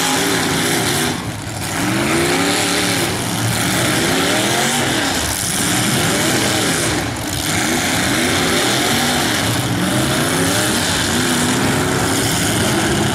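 Several demolition derby cars' engines revving hard at once, their pitch repeatedly climbing and falling as the drivers floor them and back off, over a constant din of exhaust noise.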